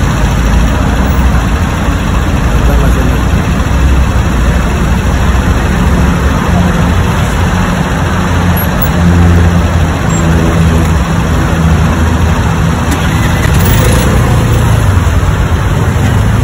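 Steady road-traffic noise with an engine idling close by, a low hum that shifts a little in pitch about halfway through.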